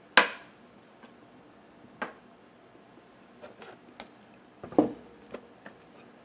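Scattered sharp clinks and knocks of a metal spoon against a glass bowl and a wooden tray, the loudest just after the start and another near the end, then small plastic clicks as a water bottle's flip-top lid is handled.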